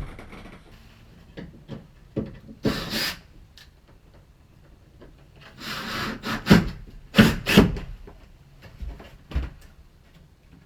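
Materials being handled in renovation work: a series of short rubbing scrapes and a few knocks at irregular spacing, the loudest bunched together just past the middle.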